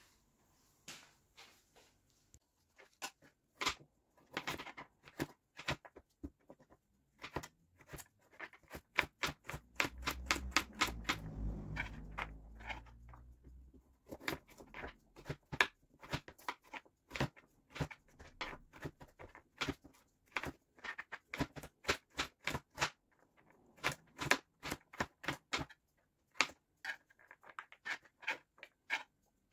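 Kitchen knife chopping a carrot on a plastic cutting board: a long run of short, sharp taps of the blade striking the board, irregularly spaced. A low rumbling noise runs for a few seconds around the middle.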